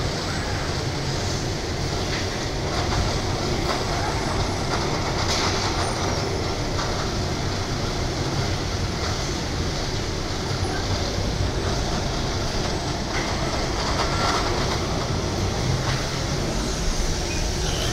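Steady mechanical din of an automatic bag-packing machine and its conveyor running, with a few faint clicks.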